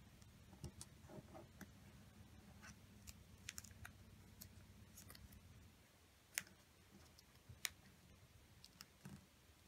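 Faint crinkles, taps and clicks of a sheet of paper being folded and creased by hand on a table, with two sharper clicks a little past the middle.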